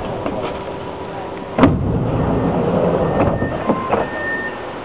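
Matra VAL metro train's doors and the platform screen doors opening at a station stop: a sharp clunk about a second and a half in, then a couple of seconds of rumbling rush as the doors slide open, with a few short tones near the end.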